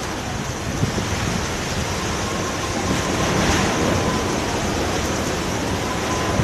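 Strong cyclonic storm wind blowing hard and steadily, a continuous rushing noise, with a faint thin whistle above it from about two seconds in.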